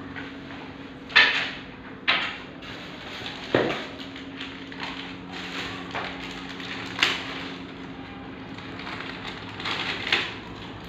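Objects being handled during a printer unboxing: several sharp plastic-like knocks and clacks, with scratchy rustling between them and a faint steady low hum underneath.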